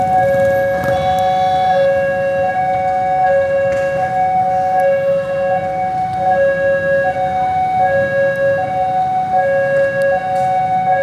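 Electronic level-crossing warning alarm sounding its two-tone signal, two notes alternating in a steady rhythm, each held under a second, over the low rumble of road traffic.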